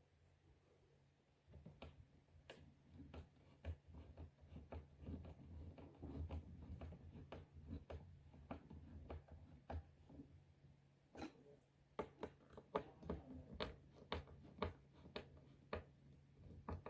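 Faint, irregular clicks and scrapes of a Phillips screwdriver being turned by hand to drive a screw into a couch fitting, in short bursts, over a low steady hum.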